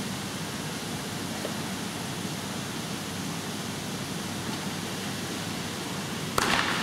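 Steady hiss of a hushed indoor diving-pool arena while the spectators wait in silence. Near the end the crowd suddenly breaks into cheering and applause as the diver hits the water.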